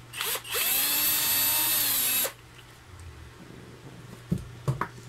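Cordless power drill triggered briefly: a short blip, then the motor spins up with a rising whine, runs steadily for about a second and a half, and winds down to a stop a little over two seconds in. Near the end come a few sharp knocks.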